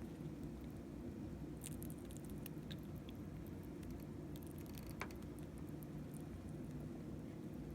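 Sugar glider chewing a worm held in a hand: faint, scattered little clicks and crunches, the sharpest about five seconds in, over a steady low hum.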